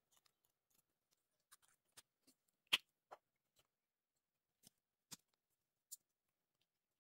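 Near silence with a few faint, scattered clicks of hard plastic as a hair piece is pressed onto a small Schleich toy figure's head. The sharpest click comes a little under three seconds in.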